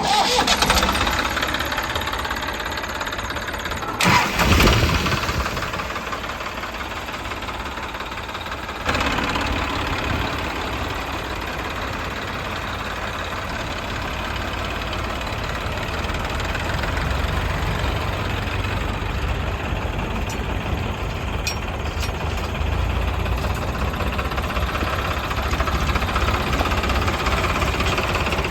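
Heavy diesel engine running steadily, with a brief louder surge about four seconds in and a step up in level about nine seconds in.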